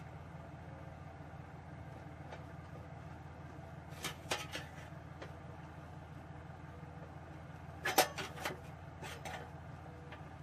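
Sheet-metal computer case panel being handled and pressed on: small groups of light metallic clicks and knocks about four seconds in and again about eight seconds in, the sharpest near eight seconds, over a steady low hum.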